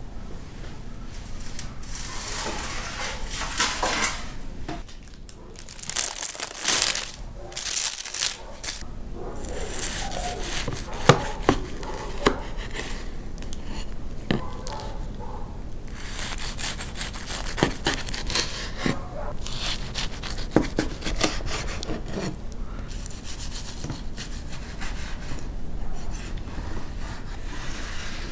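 Knife sawing through the crisp, flaky crust of a baked pastry roll on a wooden board: crackling and scraping in several spells, with a few sharp knocks.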